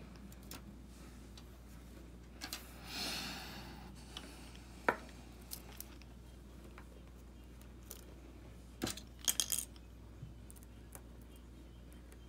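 Small clicks, taps and a brief scrape from a precision screwdriver and tiny metal parts being worked on an iPhone 6s screen assembly. A single sharp click comes about five seconds in, and a quick cluster of clicks about nine seconds in.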